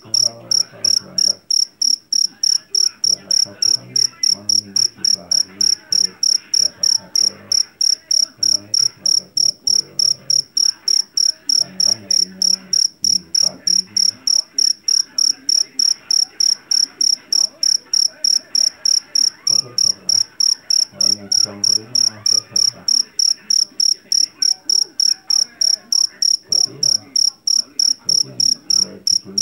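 A jeliteng field cricket chirping loudly and evenly, a shrill high-pitched pulse repeated about three times a second, over a faint low background murmur.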